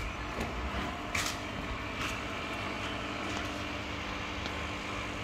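Steady electric hum of pond equipment such as a pump, an even drone holding several low tones, with a couple of faint clicks about one and two seconds in.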